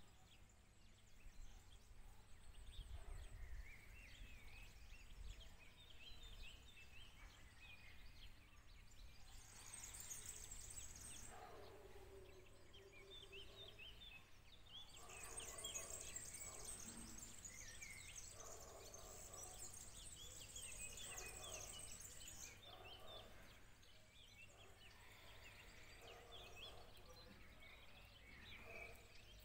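Faint birdsong: several birds chirping, with high, rapid trilling about ten seconds in and again from about fifteen to twenty-two seconds in, over a low background rumble.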